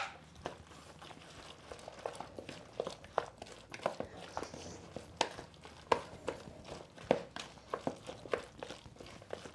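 Wooden spoon stirring diced fried potatoes and a freshly added egg in a bowl, making irregular soft clicks and knocks against the bowl with the mix shifting between them.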